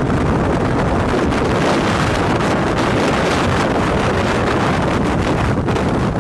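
Strong wind blasting the microphone: a loud, steady, dense rushing noise with no let-up.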